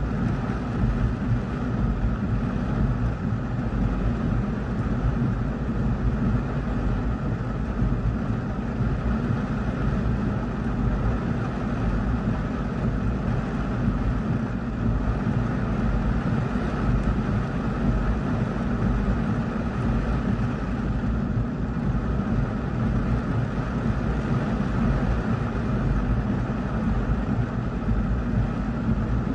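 Heavy rain with big drops beating on a car's roof and windshield, heard from inside the cabin as a steady, dense noise with a deep rumble underneath.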